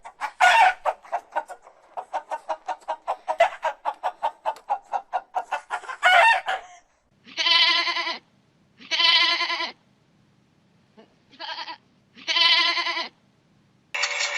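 A chicken clucking in a fast run of short clucks, about seven a second, for roughly the first seven seconds. Then come four short, wavering bleating calls, the third one briefer.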